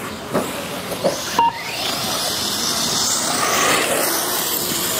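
1:8-scale electric off-road RC buggies running on a dirt track: their motors whine over a steady hiss, with one whine rising in pitch about a second and a half in. Three sharp knocks come in the first second and a half.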